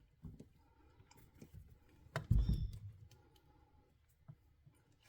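Hands handling an electrical cord and its repair tape: scattered small clicks and rustles, with one louder dull bump a little over two seconds in.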